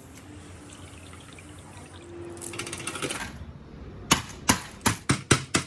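Kitchen cooking sounds: a low hiss, then a short burst of crackling, then a run of sharp, loud knocks about three a second from about four seconds in.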